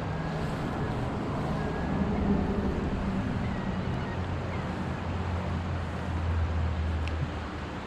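Steady low engine hum under a wash of noise, like a motor vehicle running, swelling somewhat past the middle.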